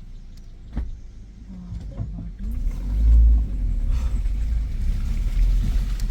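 Suzuki Jimny's engine pulling along a rough off-road track, with a few knocks from the bumpy ride in the first two seconds. The engine pitch rises and swells loudest about three seconds in.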